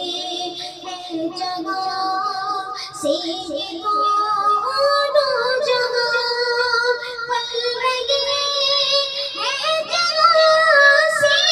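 A boy singing a naat solo into a microphone, in long held melodic lines with ornamented turns.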